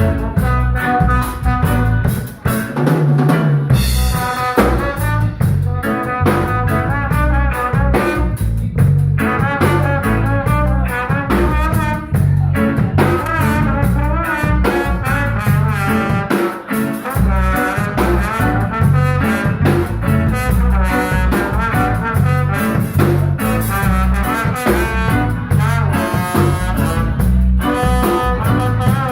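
Live instrumental band playing a number: drum kit keeping a steady beat under brass horn lines, with a strong bass end.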